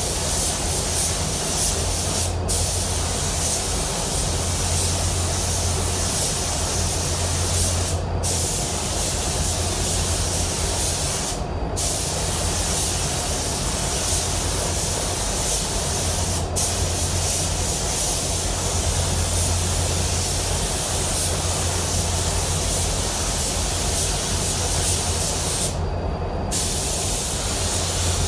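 Compressed-air paint spray gun hissing steadily as black solvent basecoat is sprayed onto a truck bedside. The hiss cuts out briefly about five times as the trigger is released between passes, over a steady low hum.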